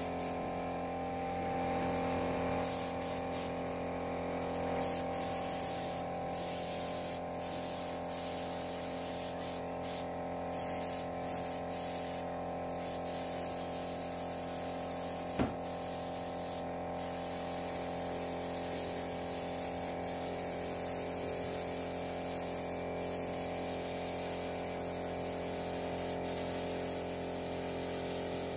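Gravity-feed compressed-air spray gun hissing steadily as it sprays finish onto a wooden table, with many brief gaps where the trigger is let off. A steady hum runs underneath, and there is one sharp click about halfway through.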